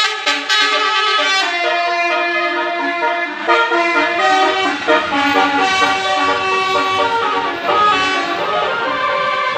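Basuri telolet multi-tone bus horns playing tunes over one another, their notes stepping up and down in pitch. A low rumble joins about four seconds in.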